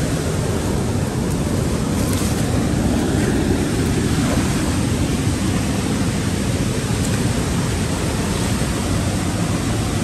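Fast-flowing mountain river rushing over rocks, a loud steady wash of water noise that does not change.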